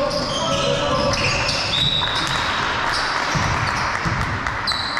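Basketball game sounds in a large hall: sneakers squeaking in short chirps on the court floor and a basketball bouncing. About two seconds in there is a hiss-like rush of noise that lasts about a second.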